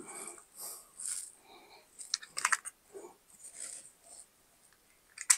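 Soft rustling and scuffing from hands handling wireless earbuds and their plastic charging case close to a clip-on microphone, with a few sharp clicks around the middle and a louder click just before the end.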